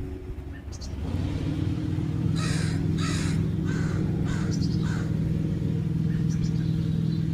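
American crows cawing, about five caws in a row, over a steady engine drone that starts about a second in and becomes the loudest sound.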